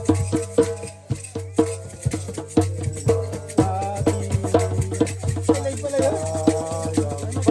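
Background music with a steady percussive beat and shaker-like rhythm.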